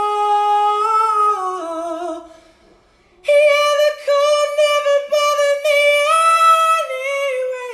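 A man singing unaccompanied in a high voice with long held notes. The first note steps down in pitch over about two seconds. After a brief pause he holds another long, steady high note to the end.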